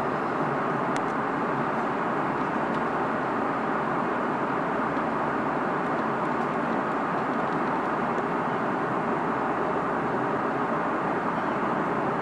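Airplane cabin noise in flight: the steady, even hiss and hum of the engines and the air rushing past the fuselage, holding the same level throughout.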